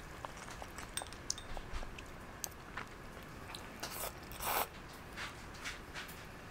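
Someone eating rice noodles in broth: chewing, with small clicks of chopsticks and a ceramic spoon against the bowl, and one louder, short noisy sound about four and a half seconds in.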